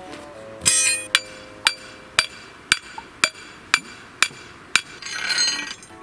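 A hammer striking a metal rod or stake into the ground: eight even, ringing metallic clinks about two a second, with a short rustling noise just before them and another near the end. Faint background music runs underneath.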